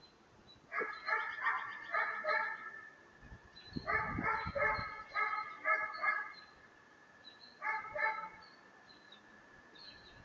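An animal calling in short, harsh, pitched calls in three series: about five, then about seven, then two. A low rumble sounds under the second series.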